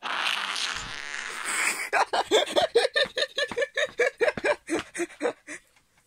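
Smartphone speaker blaring a sound-generator app: a harsh hiss for about two seconds, then a rapid string of buzzy pulses, about four a second, that stops shortly before the end.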